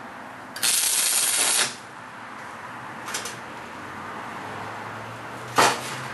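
A tack weld: a hissing, crackling burst about a second long, with a fainter short burst a couple of seconds later. A sharp metal clank near the end.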